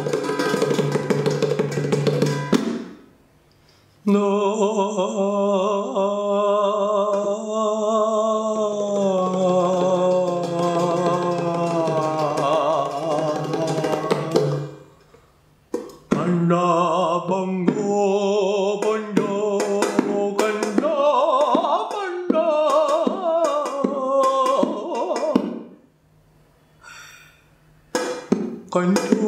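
Title music: a long, wavering sustained melody line over a low drone, then a busier passage with drum hits, breaking off for a moment three times.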